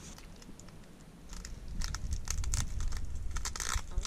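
Low rumble of wind on the microphone, louder from about a second and a half in, with scattered crackles and rustles of string and fencing being handled at a post.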